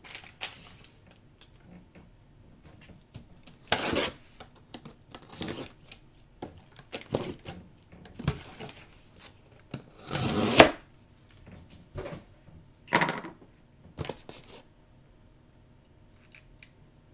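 Cardboard jersey box being handled and opened by hand: a string of scrapes, knocks and rustling tears, the longest and loudest about ten seconds in, then quieter near the end.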